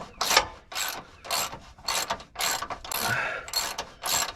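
Ratchet wrench clicking in quick repeated strokes, about two to three a second, as a bumper-to-frame bolt is being undone.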